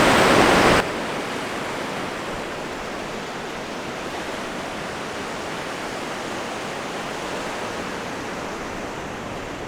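Steady rushing wash of sea waves on the shore. A louder rush of noise cuts off sharply about a second in, leaving the even surf sound.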